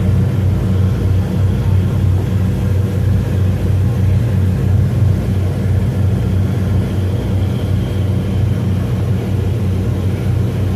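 Ferry's engines running with a steady low drone, heard on board under way, with a constant rushing noise over it.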